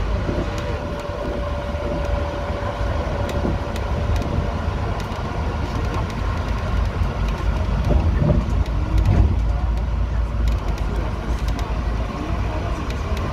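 City bus on the move: a steady rumble of engine and road noise. A thin steady whine sits over it for the first few seconds.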